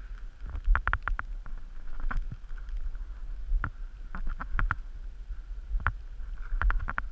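Paintball markers firing across the field: sharp pops in quick bursts, a run of about five about a second in, another run around the middle and single shots between, over a low wind rumble on the camera microphone.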